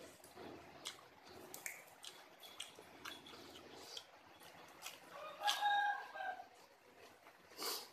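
A rooster crowing once, about five and a half seconds in, over small clicks and crunches of fresh leafy greens being picked apart and chewed.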